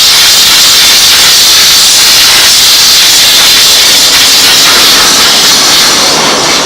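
Steam cleaner nozzle blasting a steady, loud jet of steam to blow dirt out from around a rubber seal.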